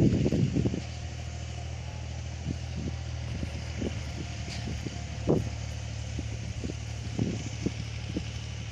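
Small irregular clicks and knocks of carbon brushes and small parts being handled and fitted into a rotary hammer, over a steady low hum.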